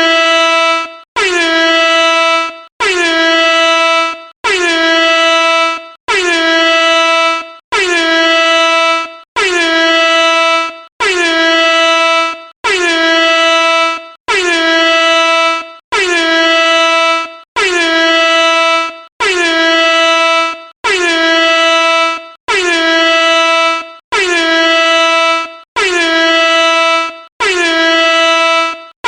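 Air horn sounding in blast after blast, each about a second and a half long with only a very short break between, about one every 1.7 seconds. Each blast dips slightly in pitch at its start, then holds one steady, bright note.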